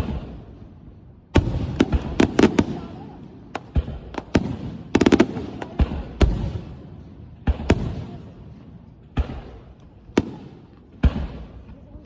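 Fireworks display: aerial shells bursting in loud bangs, some single and some in rapid clusters of several cracks, each bang trailing off in an echoing rumble.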